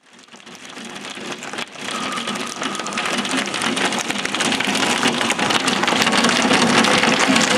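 Torrential storm downpour pelting the ground and a wall, a dense hiss full of sharp impacts. It fades in from silence over the first couple of seconds and keeps building.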